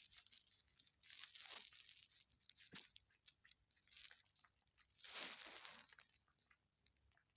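An animal eating: faint crunching and rustling in a few short bursts, with one sharp click near the middle and the loudest burst about five seconds in.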